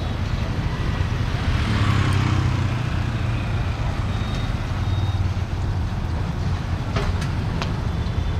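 Street traffic: engines running steadily, with a vehicle passing close about two seconds in. Two sharp clicks near the end.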